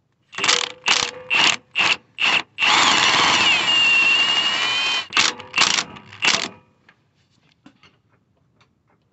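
Impact wrench loosening a 17 mm engine-mount nut or bolt: five short bursts, one long run of about two and a half seconds, then three more short bursts.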